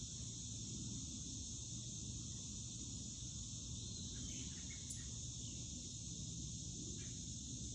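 Steady high-pitched insect chorus over a low rumble, with a brief faint chirp about four seconds in.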